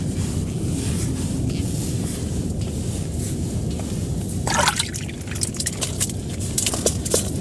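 Water sloshing and trickling in a hole drilled through the ice, with a brief splash about four and a half seconds in and a few small clicks, over a steady low rumble.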